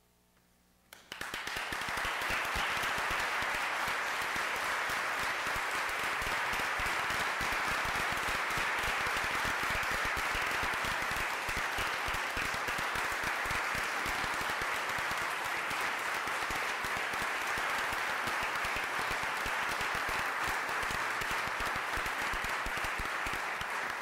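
Large audience applauding steadily. The clapping starts abruptly about a second in and holds at an even level throughout.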